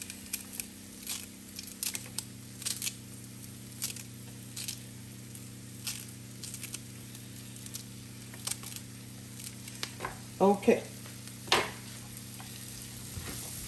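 Celery and seasoning sizzling in a hot pot: irregular sharp crackles and pops over a steady low hum.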